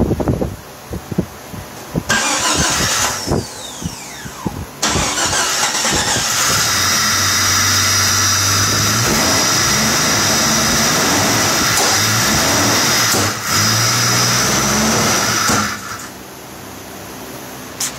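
Freshly rebuilt Jeep 4.1-litre inline-six (a 4.0 bored .060 over, with a Crane cam) running under an open hood. About five seconds in it gets markedly louder with a steady high whine and stays up for some ten seconds, then drops back to a lower level near the end.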